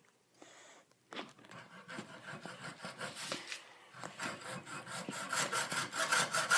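A hand saw cutting back and forth through a golf ball. The strokes are faint at first, then grow louder and quicker over the last couple of seconds, at about four or five strokes a second.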